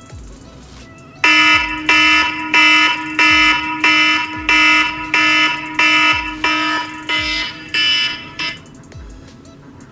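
Electronic alarm beeping: about a dozen evenly spaced beeps, roughly one and a half a second, starting about a second in and stopping near the end.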